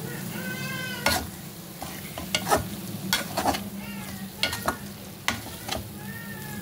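Metal spatula stirring ridge gourd (torai) sabzi in a metal pot over a light sizzle, with a series of sharp scrapes and knocks against the pot.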